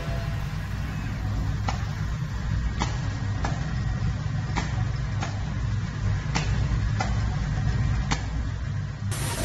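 Benchtop automated box-processing machine running: a steady low machine hum with about eight sharp clicks spaced roughly half a second to a second apart. It cuts off abruptly near the end.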